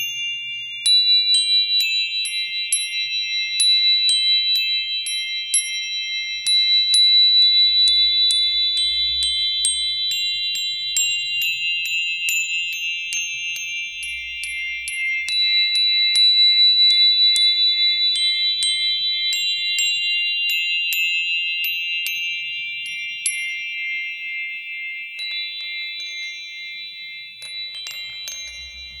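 Meditative ambient music: sustained high tones held throughout, with many short tinkling chime notes scattered over them.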